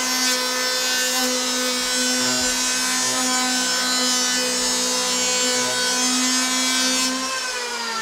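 Electric hand planer cutting along the edge of a door in one continuous pass: a steady high whine with the hiss of the cutter taking off shavings. About seven seconds in the motor is let go and its whine falls in pitch as the cutter spins down.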